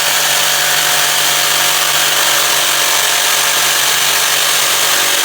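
Total 800 W electric jigsaw running steadily at speed: loud, even motor noise with a constant pitch.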